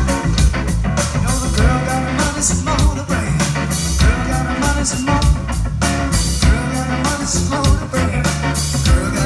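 Live rock band playing through a PA: electric guitar, electric bass and drum kit with sung vocals, drums keeping a steady beat.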